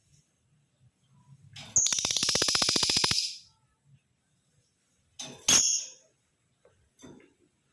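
Male lovebird giving a fast chattering trill (ngekek) of about a second and a half, starting about two seconds in. It follows with a sharp, shrill call about two seconds later and a fainter one near the end.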